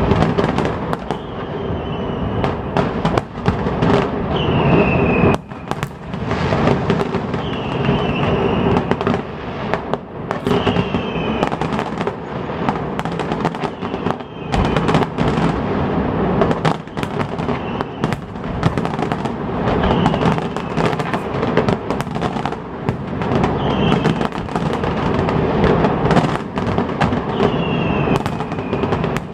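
Fireworks display: a dense, continuous barrage of bangs and crackling, loud throughout.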